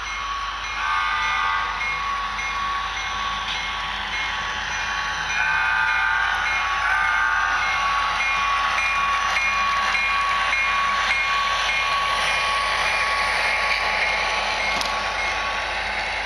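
Sound-equipped HO scale model diesel locomotives playing horn blasts and a bell that rings steadily, with the hum of the engine sound. Under them is the rolling rush of the model freight cars' wheels on the track, which grows as the cars pass close. There are three horn blasts, about 1, 5 and 7 seconds in, and the middle one is the longest.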